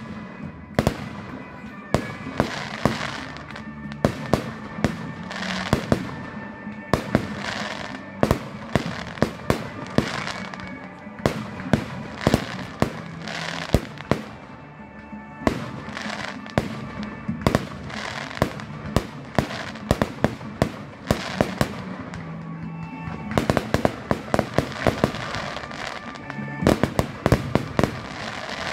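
Fireworks display: aerial shells bursting one after another with sharp bangs, several seconds apart at first and then in a rapid volley near the end, with music playing underneath.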